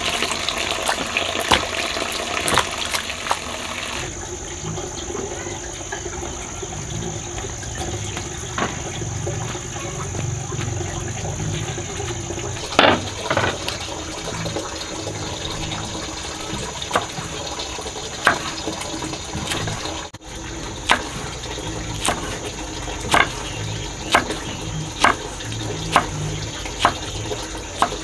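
Water running or pouring steadily, fuller for the first few seconds, with sharp knocks now and then, coming about once a second in the last part.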